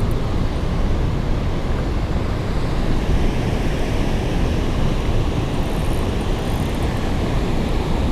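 Steady rush of water pouring through a river spillway.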